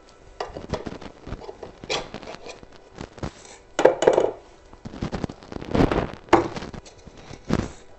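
Scattered knocks and clinks as a rubber tyre is worked onto a Begode Master Pro electric unicycle's metal rim by hand, with a few louder knocks about halfway through and near the end.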